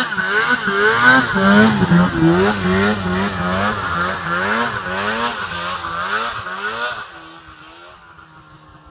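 Polaris Pro RMK snowmobile's two-stroke engine revving up and down about twice a second as the rider works the throttle while sidehilling. About seven seconds in it drops to a quieter, steadier note.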